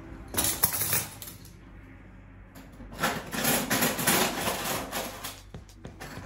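Metal cutlery clinking and clattering as it is handled and put away: a short spell near the start, then a longer run of clinks for about two seconds from around the middle.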